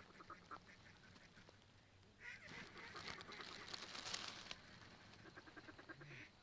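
Ducks quacking faintly in quick strings of short notes. A louder rustling rush of noise runs for about two seconds in the middle.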